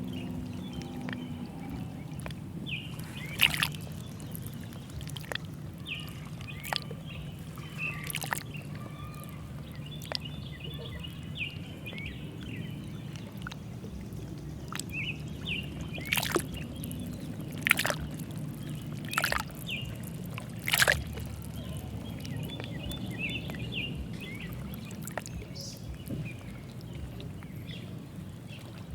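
Lake water lapping and sloshing with sharp small splashes now and then, a cluster of them about two-thirds of the way through, over a steady low rumble, with birds chirping.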